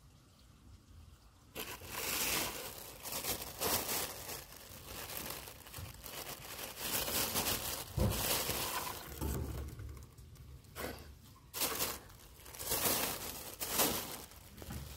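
Plastic sheeting crinkling and crackling in irregular bursts as a hedgehog is handled on it, starting about a second and a half in, with a low bump about eight seconds in.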